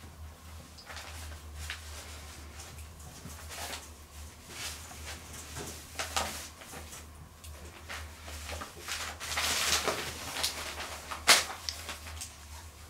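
Cotton de Tulear puppies scuffling as they play, with scattered scratches, knocks and rustling. There is a louder rustling stretch about nine seconds in and a sharp knock a little after eleven seconds.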